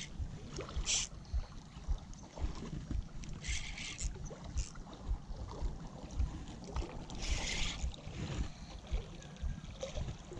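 Wind buffeting the microphone and small waves lapping against a rocky shoreline, a steady low rumble with frequent soft thumps. A few short hissing bursts come through, about a second in, near 3.5 s and twice more near 7 to 8 s.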